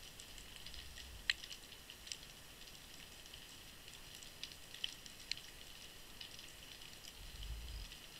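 Underwater ambience picked up by a camera in a waterproof housing on the seabed: a faint steady hiss with scattered sharp clicks and crackles, the loudest about a second in, and a low bump near the end.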